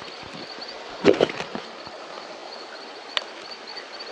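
Steady rushing of a river with a quick cluster of sharp knocks about a second in and a single click about three seconds in. A faint high chirp repeats throughout.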